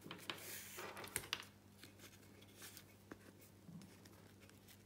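Faint handling sounds of a Flexi retractable dog leash's nylon tape being wound by hand onto its plastic spool: soft rustling and a few small plastic clicks.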